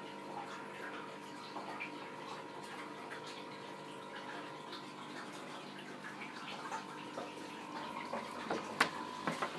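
Aquarium filter water trickling and dripping steadily into the tanks, with a faint steady hum underneath. A few sharp clicks near the end.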